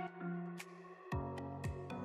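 Upbeat background music: a held low note, then from about a second in a beat with a kick drum about twice a second under pitched chords.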